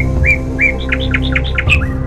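Background music with a steady low drone, over which a bird chirps again and again: short upward-flicking notes that come quicker through the middle.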